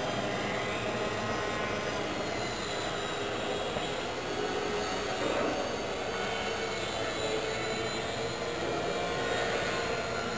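Electric motors and propellers of small radio-controlled aircraft flying in a large hall: a steady whine with several pitches drifting up and down as the throttle changes.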